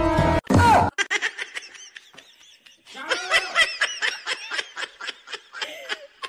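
Background music cuts off about half a second in. Then comes high-pitched, rapid laughter in quick repeated bursts, thickest in the second half.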